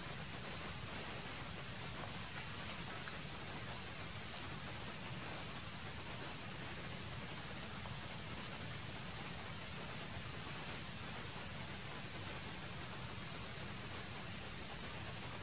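A steady, high-pitched drone of insects over a low background hiss.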